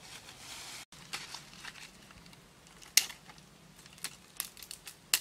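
Dry leaf litter rustling under hands and feet, then sharp crackles and snaps of dry leaves and twigs being handled or struck with a stick, one louder snap about three seconds in.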